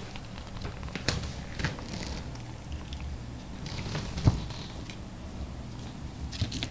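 Cat playing on the floor: a few soft thumps and taps, the loudest about four seconds in, over a low steady hum.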